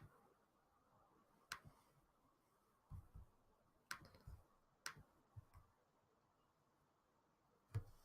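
Scattered computer mouse and keyboard clicks, about half a dozen sharp clicks a second or more apart, with a few dull low thumps among them, over faint room tone.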